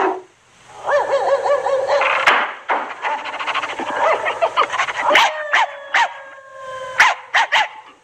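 Dogs howling and barking on an animated film soundtrack. A wavering howl comes about a second in, then a fast run of short yaps, then several sharp barks over a long held howl in the second half.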